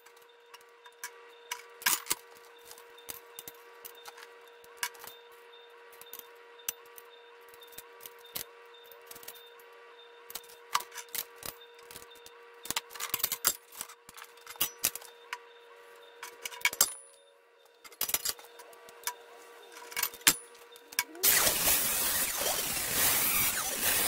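Light clicks and knocks of hand work at a bench vise holding steel angle iron, over a faint steady hum. About 21 seconds in, an angle grinder starts cutting the steel angle iron with a loud, even grinding noise.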